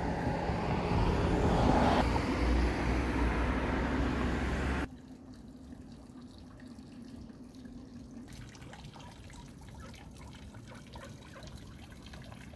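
Steady rush of flowing water, cutting off abruptly about five seconds in and giving way to a much quieter background.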